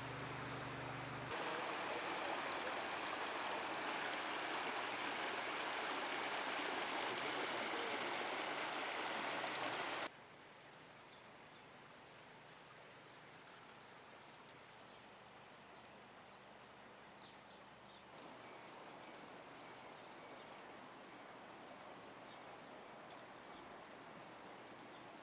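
Floodwater rushing steadily for about ten seconds, cut off suddenly; then quieter outdoor ambience with birds chirping in short, repeated high calls.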